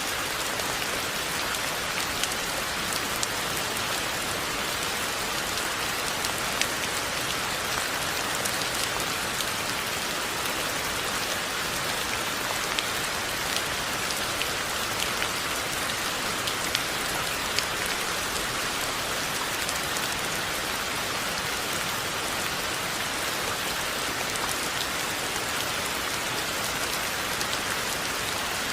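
Steady rain falling, an even hiss with scattered sharper drops striking a surface.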